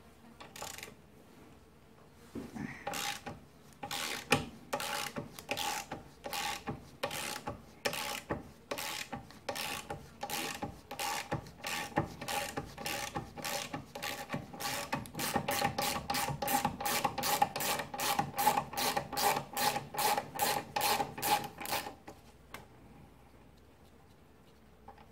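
Socket ratchet clicking in a steady run of strokes as a motorcycle front brake caliper mounting bolt is backed out of the fork leg. The strokes quicken over the later part and stop a few seconds before the end.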